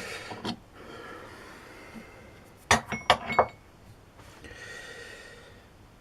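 A quick cluster of about five sharp metallic clinks, some with a short ring, as metal workshop tools or parts are handled and knocked together, between quieter stretches of faint handling and breathing.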